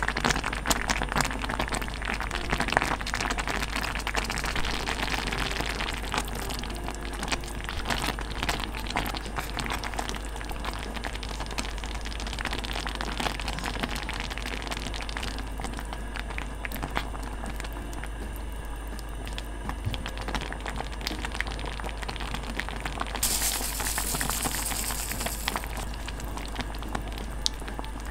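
Rice porridge with oysters and maesaengi seaweed simmering in a pot: a steady run of small bubbling pops and crackles, with a brief hiss near the end.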